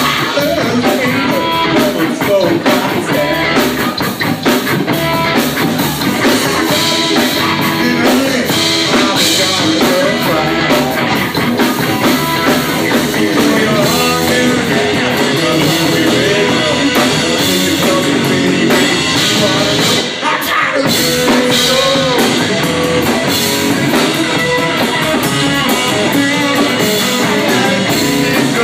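A band playing rock music: guitar over a drum kit, with a brief break about twenty seconds in.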